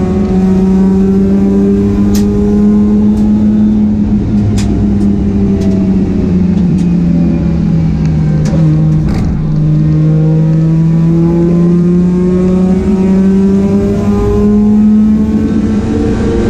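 Mazda RX8's two-rotor Wankel rotary engine running hard on track, its note climbing slowly for the first few seconds, sagging, dropping sharply about nine seconds in, then climbing steadily again. A few sharp clicks are heard during the first nine seconds.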